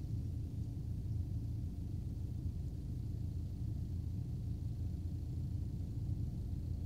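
Steady low rumble heard inside a car's cabin, with no distinct sounds on top.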